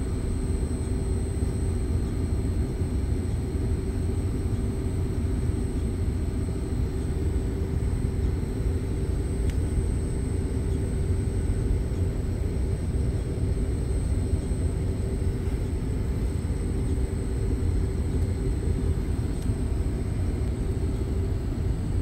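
LG Multi V5 outdoor unit running, a steady low rumble with a constant hum over it.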